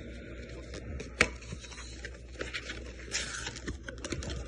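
Hands opening a cardboard cologne box: scattered taps and clicks, a sharp knock about a second in and a short rustle around three seconds in.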